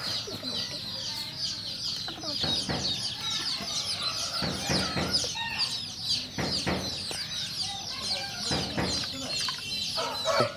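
A brood of chicks peeping without a break: many high, short cheeps that slide down in pitch and overlap one another. Several louder, lower sounds come through at intervals.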